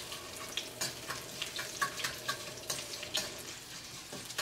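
Oil sizzling and crackling in a stainless steel kadai as broken dried red chillies, chana dal and urad dal fry for a tempering. A metal slotted spatula gives frequent sharp clicks and scrapes against the pan as the mixture is stirred.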